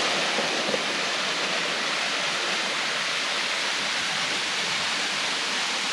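Water rushing steadily through the old iron furnace's water raceway: a constant, even rush with no breaks.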